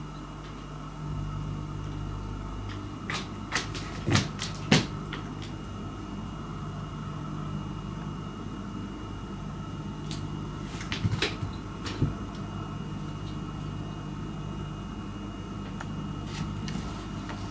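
Light clicks and taps on a wooden floor as a cat bats a cotton swab about, in two short flurries, over a steady low hum.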